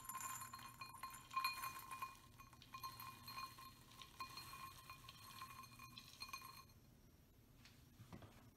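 Chopped pecans poured into a small glass bowl: a faint patter of many small pieces hitting the glass, with the bowl ringing. It stops shortly before the end.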